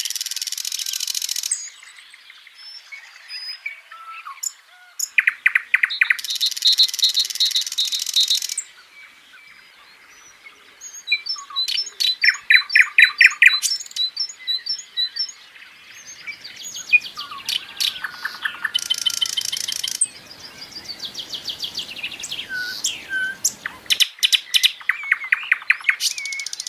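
Birds chirping and singing: bursts of fast trills and repeated high notes with short pauses between them.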